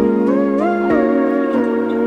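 Background music: a slow, gentle instrumental with a sliding lead melody over sustained chords.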